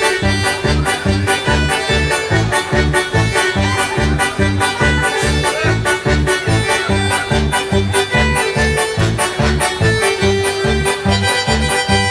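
Instrumental duranguense music played on electronic keyboards: an accordion-like lead melody over a fast, steady bass-and-drum beat.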